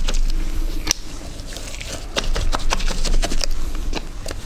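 A brush stippling resin into wet chopped strand glass mat, wetting it out: rapid, irregular dabbing taps, easing off for about a second after the first second and then coming thick again.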